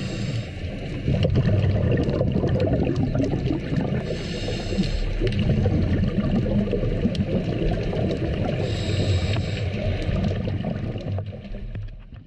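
Scuba diver breathing through a regulator underwater: a hiss of inhaled air about 4 s and again about 9 s in, over a constant low bubbling of exhaled air. It fades out near the end.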